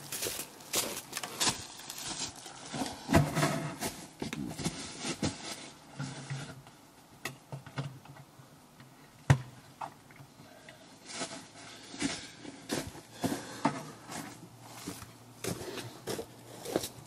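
Footsteps crunching on frozen, leaf-strewn ground and the knocks of a carried plastic bucket close to the microphone: a run of irregular crunches and knocks, with one sharp knock about nine seconds in.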